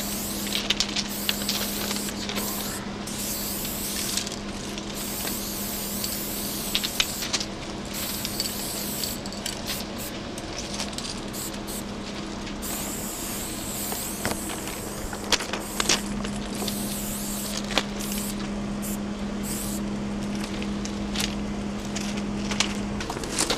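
Aerosol spray-paint can hissing in repeated bursts of one to a few seconds while graffiti is painted, with scattered sharp clicks and a steady low hum underneath.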